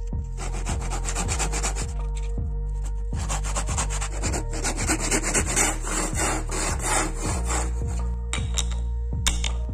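Hand saw cutting a small piece of wood with rapid back-and-forth strokes, in a short spell and then a longer one, followed by a few sharp clicks near the end.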